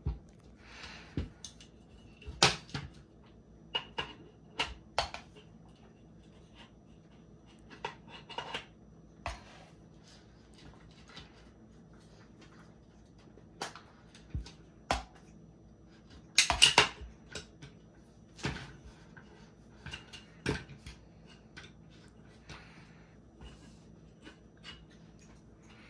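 AR-15 rifle parts being handled and fitted back together: irregular metallic clicks, clacks and knocks as the upper and lower receivers and small parts are worked. The loudest is a quick cluster of clacks about two-thirds of the way through.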